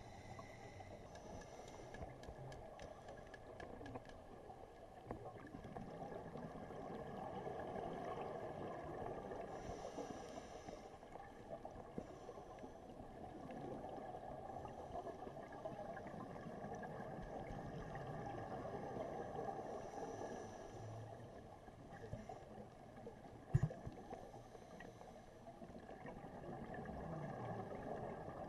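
Muffled underwater noise heard through a diving camera's housing. A scuba diver's exhaled regulator bubbles swell and fade a few times. One sharp knock comes about four-fifths of the way in.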